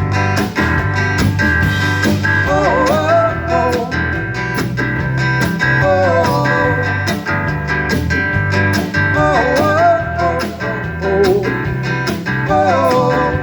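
A band playing an instrumental break: a lead guitar with bending, wavering notes over a steady bass line and a regular drum beat.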